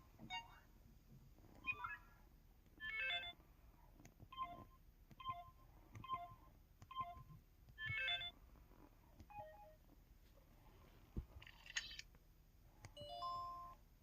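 MS700 mobile phone's 'Digital1' menu and button sounds: about a dozen short electronic beeps and chirps, roughly one a second, each a slightly different tone pattern.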